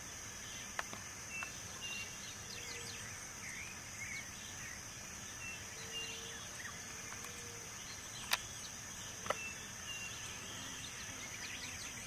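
Faint woodland ambience: scattered short bird chirps and calls over a steady high hiss, with a few sharp clicks, the loudest about eight seconds in.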